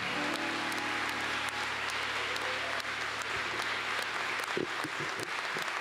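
Audience applauding while the last chord of the live song's accompaniment rings on and fades away over the first couple of seconds.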